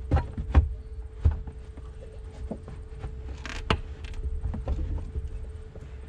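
Plastic rear pillar trim panel of a Volkswagen Passat wagon being pushed and knocked by hand against its retaining clips: a few irregular knocks and rattles, with a short rustle of the carpeted panel. The panel is not snapping into place.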